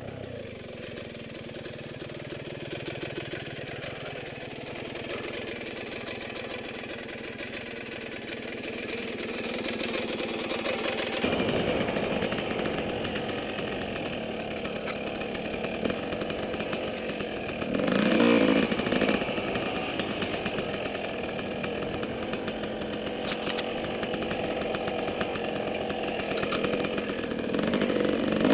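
Dirt bike engine running, quieter at first, then louder and harder-working from about eleven seconds in as the bike climbs and rides over the rocky trail. A brief louder rev comes about eighteen seconds in, and another near the end.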